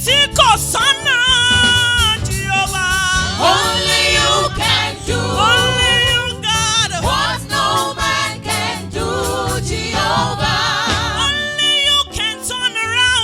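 Gospel worship music: a lead singer holding long, wavering sung notes over a steady backing accompaniment.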